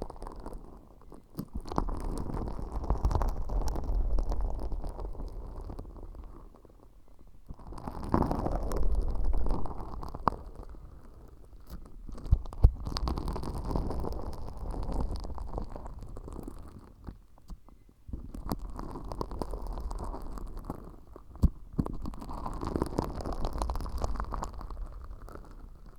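Tweezers working sticky, glitter-laden slime against a bare ear microphone: close, sticky squishing and crackling in slow bouts of a few seconds each, with small sharp clicks.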